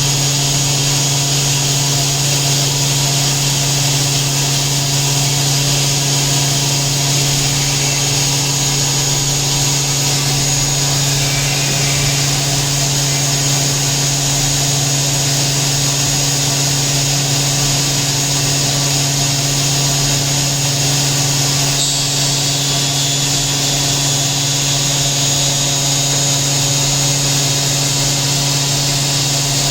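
Hurco VMX 30 vertical machining center running steadily: a constant low hum with a high whine and hiss over it. The high whine shifts slightly about two-thirds of the way through.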